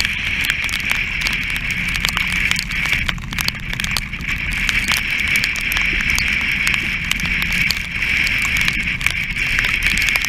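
Strong wind and rushing sea around a sailing yacht's foredeck in rough weather: a loud, steady high-pitched hiss over a low rumble, with many small ticks and knocks of spray and wind striking the camera.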